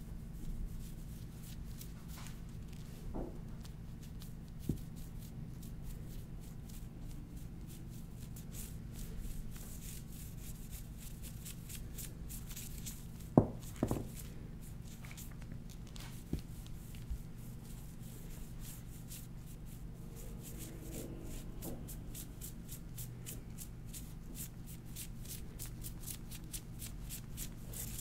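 Faint handling sounds on a hard poured-sugar candy sheet: a gloved hand rubbing and brushing over the surface, with a few sharp taps, the loudest about a third of the way in, over a steady low hum.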